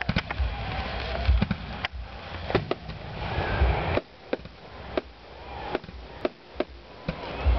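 Aerial fireworks going off: sharp cracks and pops at irregular intervals, over a low rumble that is heavier in the first half and eases about four seconds in.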